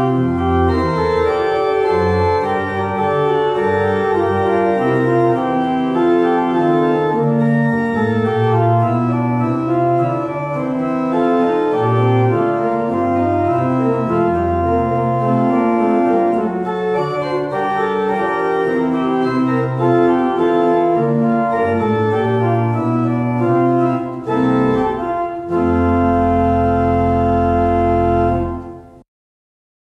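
Organ playing a closing postlude in chords over a deep bass line, ending on a long held final chord that cuts off abruptly near the end.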